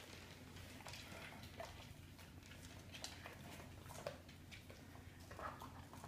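Faint scattered sniffs and small clicks from a Rhodesian Ridgeback puppy nosing for spilled kibble on a wooden floor, over a low steady hum.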